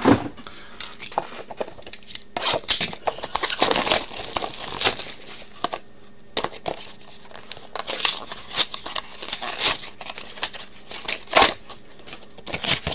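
Hockey card box wrapping and packs being torn open and crinkled by hand: irregular rustling and tearing that stops briefly about six seconds in.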